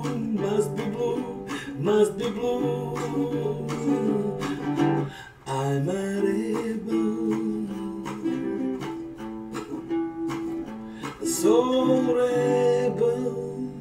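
Caramel guitalele, a small six-string travel guitar, strummed in chords while a man sings along.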